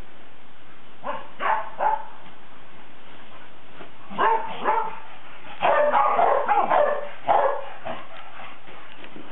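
Kerry Blue Terriers barking and yipping in short bursts: three quick barks about a second in, two more around four seconds, then a dense run of barks from about five and a half to seven and a half seconds, and one last bark near eight seconds.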